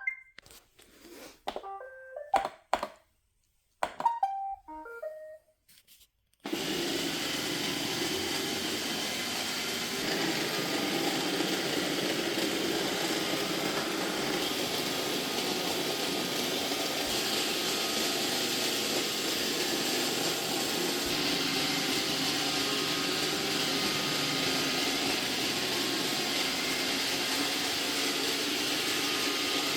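iRobot Roomba robot vacuum sounding a few short electronic tones, then its vacuum motor and brushes starting suddenly about six seconds in and running steadily.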